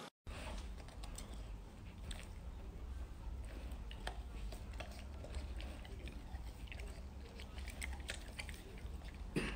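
A golden retriever licking and nibbling at the peel of a large citrus fruit: soft, irregular wet mouth clicks and small bites, over a low steady hum.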